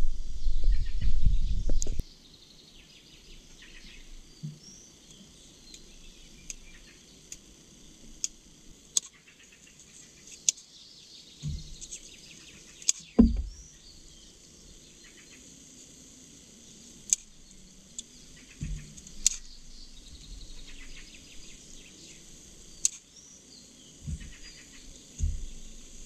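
Woodland birds chirping, with sparse sharp crackles and pops from a small stick campfire and a few soft low thuds. It opens with about two seconds of loud close handling noise that cuts off suddenly.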